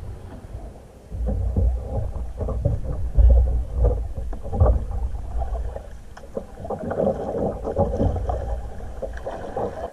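A plastic sit-on-top kayak being pushed off and paddled: irregular paddle splashes and knocks on the hull, over a low rumble of wind on the camera microphone.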